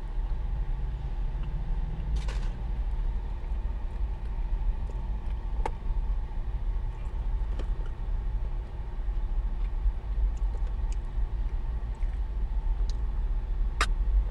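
Steady low rumble of a big truck's engine idling, with a few faint clicks and a short rustle about two seconds in.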